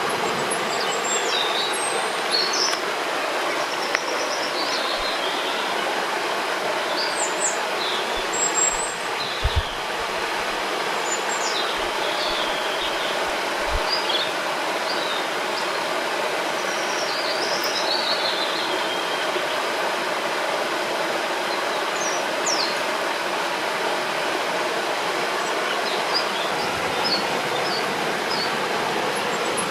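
Steady rushing of a river's flowing water, with birds singing short chirps and trills over it throughout.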